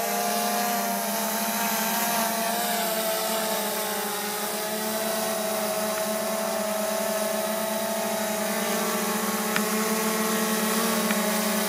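Autel X-Star Premium quadcopter hovering, its four motors and propellers humming steadily with a slight wavering in pitch as they hold it in a stable hover.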